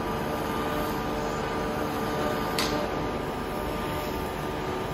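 Plasma transferred arc (PTA) welding torch hardfacing the rim of a metal mould ring: a steady arc hiss with a constant hum, broken by one short sharp crackle about two and a half seconds in.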